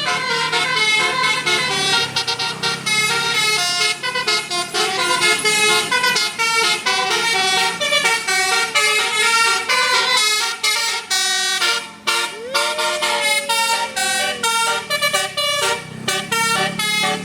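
Bus telolet horn in basuri style playing a fast melody of short stepped notes. About twelve seconds in, a single tone rises and then slowly sinks.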